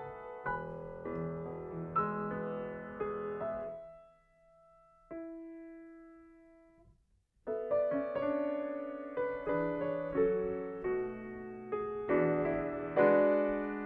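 Grand piano played solo, classical music. About four seconds in the playing dies away to a single note that is struck and left to decay, then fuller playing resumes a little past the middle.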